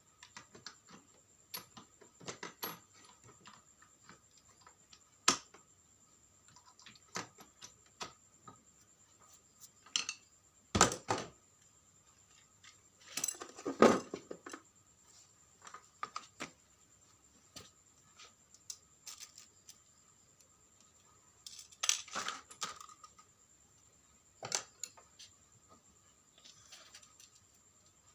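Small hard parts being handled: scattered clicks, taps and knocks, with bursts of clatter about eleven and fourteen seconds in and again near twenty-two seconds, over a faint steady high whine.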